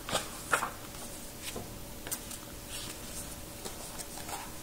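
Pages of a paperback picture book rustling and crinkling as the book is handled and held open, a handful of short scattered rustles.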